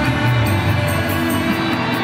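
Dangdut backing music from an electronic keyboard, playing steadily through an instrumental passage with no voice singing over it.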